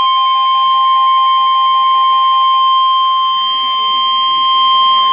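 NOAA Weather Radio warning alarm tone: a single steady, loud 1050 Hz tone held without a break, signalling that a severe thunderstorm warning message is about to follow. A quieter rapid beeping sounds under it for the first couple of seconds.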